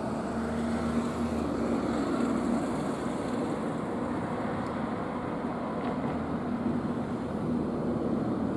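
Iyotetsu Moha 2000-class tram running slowly toward the listener on street track, with a low on-and-off hum over steady road-traffic noise.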